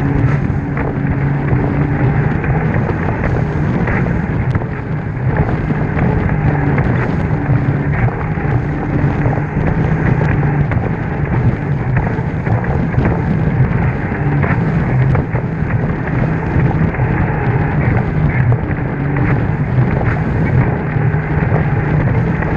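Jet ski engine running steadily at cruising speed, mixed with rushing water, wind on the microphone and irregular short knocks of the hull over the chop.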